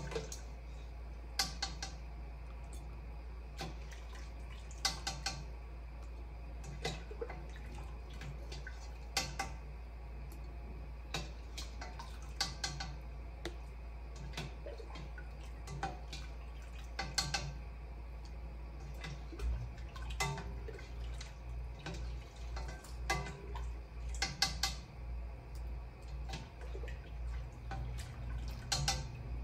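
A metal spoon scooping chicken and liquid in a stainless steel stockpot, with sharp clinks of the spoon against the pot every second or two and light dripping.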